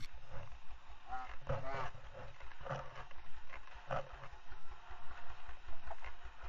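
Motorcycle engine running at idle, an even low rapid pulse throughout, with faint voices in the background.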